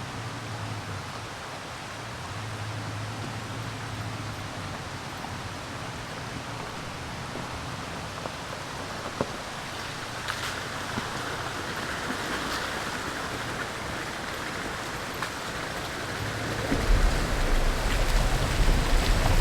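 Pickup truck creeping along a rocky trail beside a stream: the stream rushes steadily over a low engine hum, with a few clicks of tyres on stones. Near the end a louder low rumble comes in.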